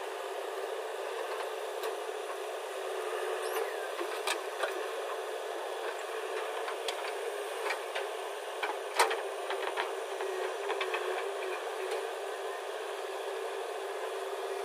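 Construction machinery running steadily, with scattered sharp clanks and knocks; the loudest comes about nine seconds in.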